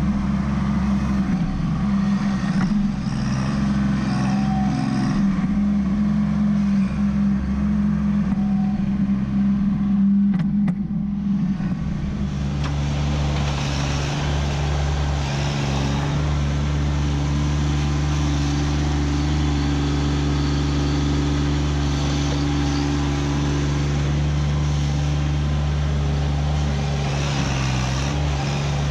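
Kubota B2601 compact tractor's three-cylinder diesel engine running steadily as the tractor digs soil with a front-loader stump bucket. The sound changes about eleven seconds in, then settles to a steadier, even engine note.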